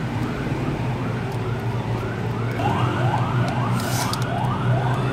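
Electronic siren sounding a rapid rise-and-fall yelp about twice a second, growing louder about halfway through, over a steady low hum.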